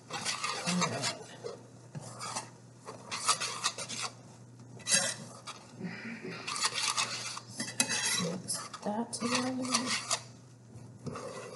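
A metal utensil stirring and scraping a thick oatmeal, chocolate and peanut butter mixture around a pan, in repeated bursts of scraping with short pauses between them.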